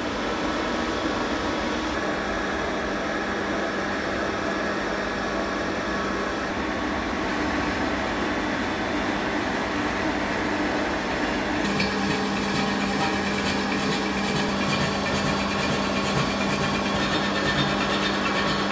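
A 1950s SIP Hydroptic No 6 jig borer running, its 150 mm four-cartridge facing cutter turning at about 130 RPM and taking a light skim pass across a steel plate: a steady machine hum with the scrape of the cutting. About twelve seconds in a steady low tone comes in and the cutting noise grows rougher.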